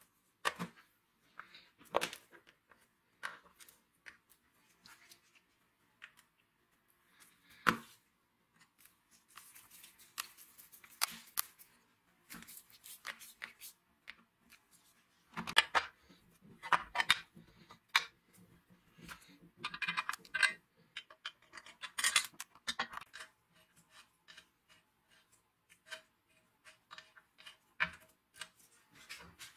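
Hand reassembly of an angle grinder: scattered sharp clicks and taps of its plastic housing and metal parts, with stretches of rapid rasping as a screwdriver turns screws into the housing.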